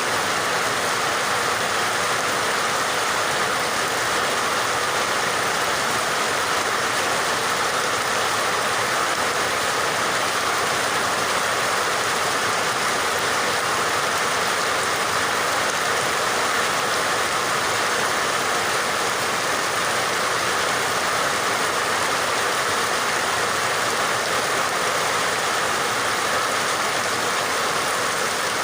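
Steady rain, an even unbroken hiss of falling rain.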